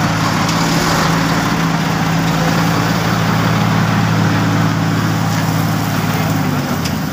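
Heavy diesel engines of an asphalt paver and a dump truck running steadily as hot asphalt is fed into the paver. The engine note dips slightly near the end.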